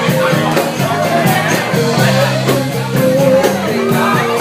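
Loud music with a singing voice over a steady drum beat.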